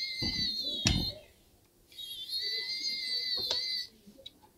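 Small electric precision screwdriver whining as it turns laptop screws out, in two runs of about two seconds each, with a short click as it is lifted and set on the next screw.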